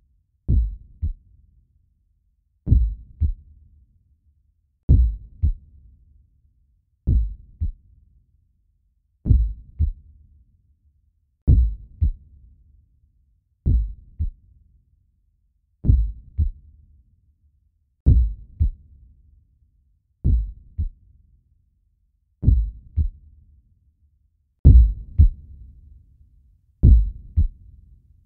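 Heartbeat sound effect: deep double thumps (lub-dub), one pair about every two seconds, slow and even.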